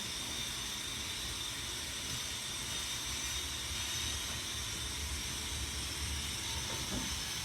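Steady background hiss with a faint, constant high-pitched whine: room tone with no clear event.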